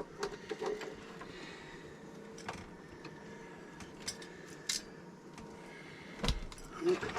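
Rummaging through stored cables and parts: scattered small clicks and knocks of items being handled and moved, with one louder knock about six seconds in.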